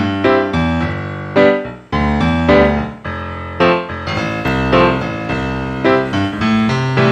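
Background music: a piano melody of struck notes over sustained bass chords.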